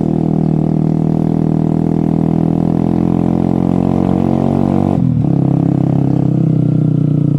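A vehicle engine running steadily under way, its pitch dropping abruptly about five seconds in, as at a gear change.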